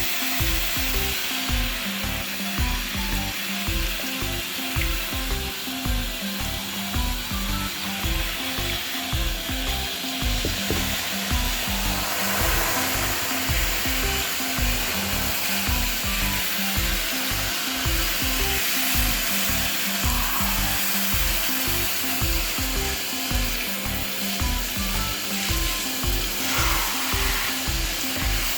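Background music with a steady beat over a continuous hiss.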